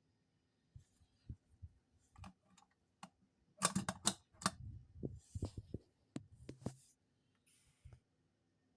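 Irregular mechanical clicks and clacks from a vintage rocket-ship coin bank being handled and worked, with a close cluster of sharp clicks a little before the middle.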